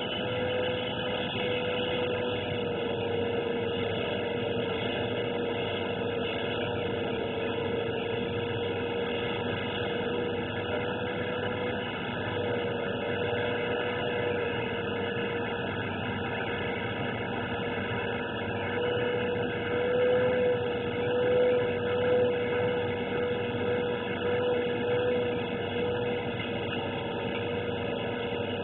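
A steady droning hum with one slightly wavering tone, swelling louder for a few seconds about two-thirds of the way through.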